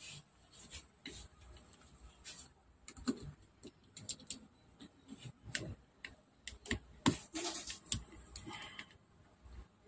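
Small screwdriver working screws out of the plastic base of a Bose SoundLink Revolve+ speaker: faint, irregular clicks and ticks of the bit, screws and plastic housing.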